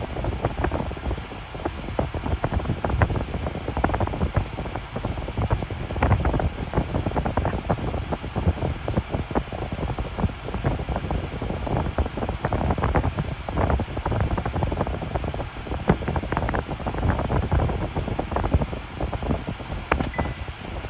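Wind buffeting the microphone: a continuous low rumble with irregular gusty peaks.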